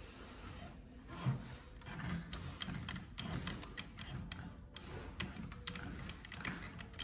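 A low knock about a second in, then a run of small, irregular clicks and ticks from hands handling thread and small metal parts around the needle and open bobbin area of an industrial walking-foot sewing machine.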